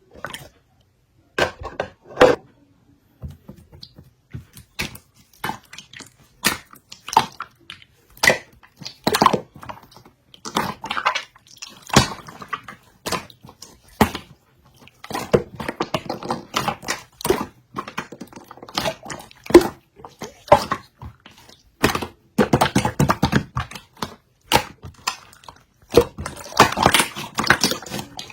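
Hands squeezing and pressing a stiff slime, giving irregular sharp clicks and crackling pops that come in denser runs in the second half.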